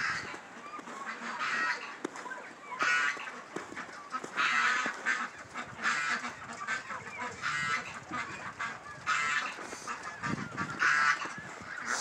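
Backyard fowl calling over and over, a short call every second or so.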